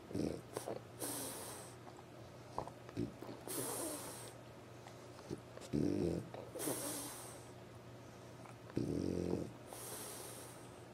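French Bulldog snoring in its sleep: a rattling, snorting snore followed by a hissing breath, repeating about every three seconds. It is the typical snore of a flat-faced breed's short airway.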